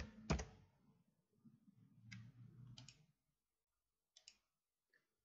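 Sharp clicks of a computer mouse and keyboard in near silence. There are two loud clicks at the start, a pair about two seconds in and a fainter pair a little after four seconds.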